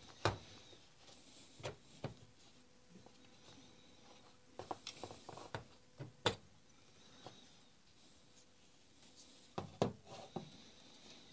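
Quiet handling sounds of a Makita DBO380Z orbital sander being taken apart: scattered small clicks, knocks and rubs of metal and plastic as the aluminium base section is worked loose and lifted off the motor housing. There is a cluster of knocks around the middle and another near the end.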